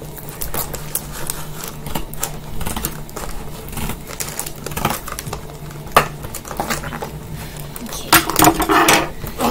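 Scissors snipping through the cardboard and plastic of a toy box, a run of irregular small clicks with a sharper snip about six seconds in. Near the end comes a louder rustle of the packaging being worked loose.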